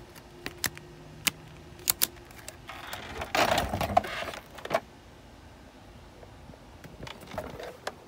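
Handling noise around a plastic upright vacuum: a string of sharp clicks and knocks, then about a second and a half of rustling and scraping in the middle, and a shorter scrape near the end.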